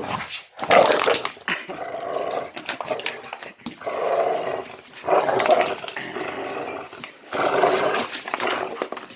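Dog growling in repeated bouts of about a second each, with sharp clicks and crackles between them: a possessive growl while it holds onto a bottle that is being pulled from it.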